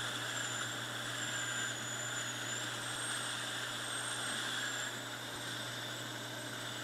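Electric drill running steadily as a long bit bores the draw hole into a soapstone pipe blank, with a quiet steady hum and a thin high whine that wavers up and down in pitch.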